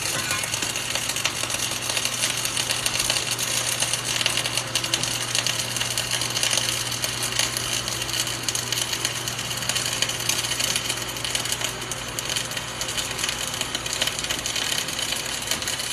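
Arc welding: a steady, dense crackle from the welding arc, running without a break, over a constant low electrical hum.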